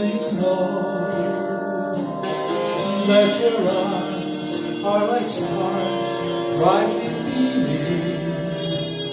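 A man sings a swing-era song through a handheld microphone over steady instrumental accompaniment.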